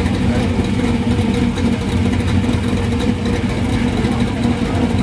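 Small-block V8 in an old Chevrolet pickup idling steadily.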